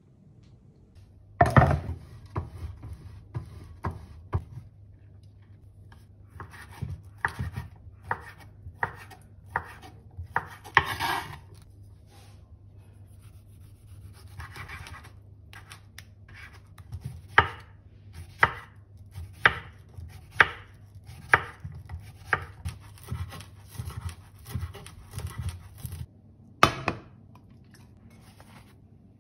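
Kitchen knife chopping on a cutting board: a long series of sharp chops, often about one a second, with a short scraping sound a little before the midpoint.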